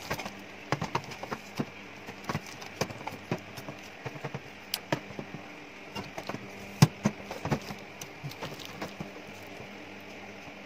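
Irregular clicks and knocks of a black metal tripod stand's legs and joints being handled and adjusted on a metal tabletop, over a faint steady hum. The loudest knock comes about seven seconds in.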